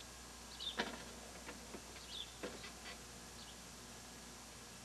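Small birds chirping in short high calls every second or so, with a few sharp knocks and clanks from a walk-behind lawnmower being wheeled across the lawn, the loudest about a second in.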